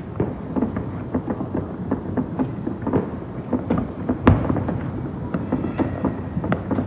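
Fireworks going off: a quick, irregular string of bangs several per second over a low rumble, with one louder boom about four seconds in.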